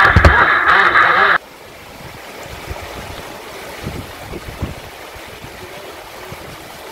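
RC jet boat's motor and water jet running at speed with a steady high whine, heard from a camera on the hull, with low thumps of the hull hitting the water; it cuts off abruptly about a second and a half in. After that comes the steady rush of water over a shallow river rapid.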